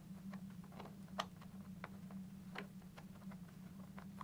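Faint, scattered small clicks and ticks of hand work on a helmet's plastic closeout panel, as its small screws are loosened with an Allen key and fingers, with the sharpest click about a second in. A steady low hum runs underneath.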